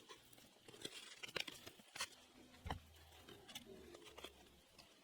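Near silence with faint scattered clicks and light rustling: small handling sounds.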